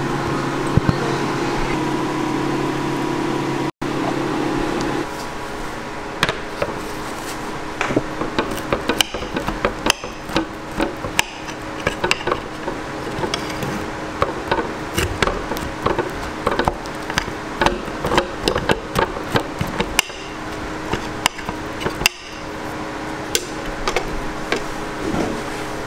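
A steady hum for about the first five seconds, then a knife and fork cutting through a cream-topped waffle on a plate: many irregular small clicks, taps and scrapes of the cutlery on the plate.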